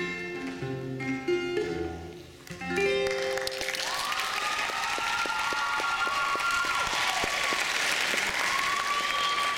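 Acoustic guitar picking the final notes of a song, which ring out and fade. About three seconds in, an audience breaks into applause, with a few cheers over it.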